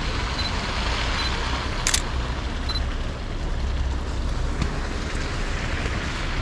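Steady city street traffic noise with a low rumble. One sharp click about two seconds in, and three faint short high beeps in the first three seconds.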